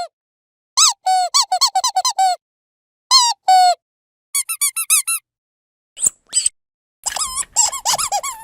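Rubber dog squeaky toy being squeezed in quick bursts: runs of short squeaks, a couple of longer ones, and a higher-pitched run, with silent gaps between, ending in a dense burst of rapid squeaks.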